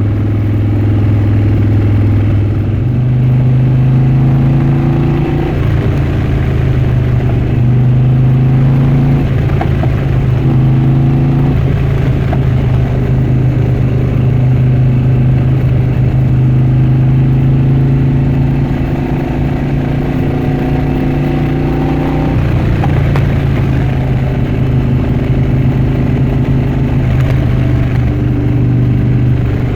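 Harley-Davidson Dyna Switchback's V-twin engine running under way. Its note rises and falls in steps several times, with a marked drop a little past two-thirds of the way through before it climbs again.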